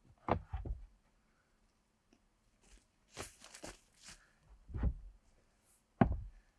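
Wooden wall-frame boards knocking and thudding against the plank deck as they are shifted by hand, a few separate thuds with the sharpest near the end. Footsteps crunch on dry forest litter in the middle.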